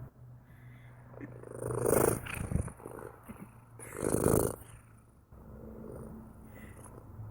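Domestic cat purring steadily, with two louder, noisier swells about two seconds and four seconds in.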